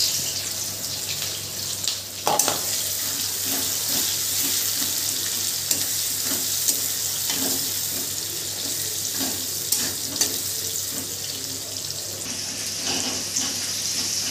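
Chopped onions sizzling steadily as they fry in hot oil in a kadai, stirred with a metal ladle that scrapes against the pan, with a sharp knock about two seconds in.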